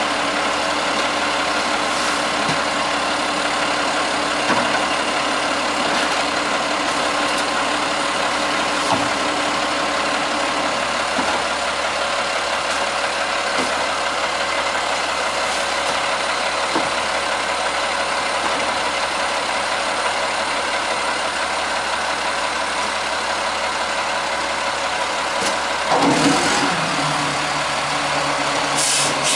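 Peterbilt 320 garbage truck's diesel engine idling steadily, with a few faint knocks as yard-waste cans are tipped into the front container. About 26 seconds in, the engine revs up to drive the hydraulics as the front-loader forks lift the container.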